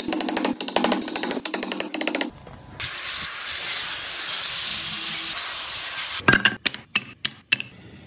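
Woodworking in quick succession: about two seconds of rapid chisel strikes cutting into a wooden block, then an angle grinder fitted with a sanding pad running steadily against the wood as a hiss for about three seconds, then a few separate sharp wooden knocks near the end.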